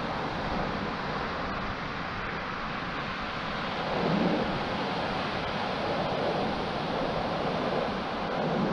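Steady noise of wind and surf, with wind rumbling on the microphone; it swells briefly about four seconds in and again near the end.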